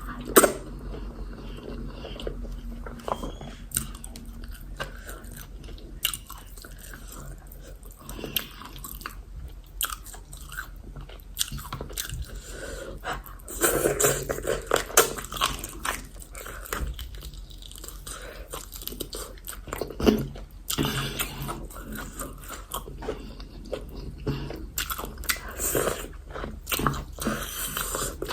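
Close-up eating sounds: a person chewing yam fufu with egusi soup, with irregular wet smacks and clicks of the mouth.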